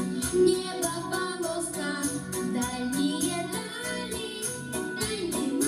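Children singing into microphones over backing music with a steady beat.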